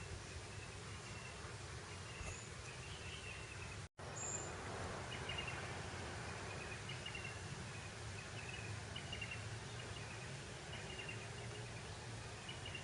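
Breeze over open grassland: a steady rush of wind with a low rumble, under repeated short high chirps from small creatures. The sound cuts out for an instant about four seconds in.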